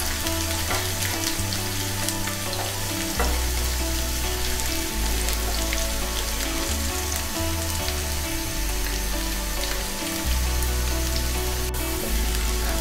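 Chopped onion and garlic sizzling steadily in hot oil in a nonstick frying pan, stirred with a wooden spoon, as they fry toward brown.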